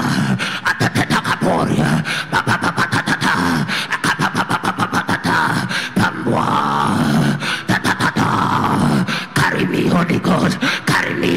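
A man praying aloud in tongues: a fast, unbroken stream of short, repeated staccato syllables.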